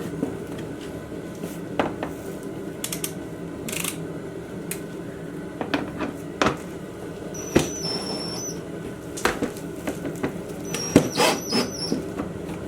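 Cordless drill driving screws into a plastic fender in two short runs, one about seven and a half seconds in and one about eleven seconds in, with clicks and knocks of handling the parts in between. A steady low hum runs underneath.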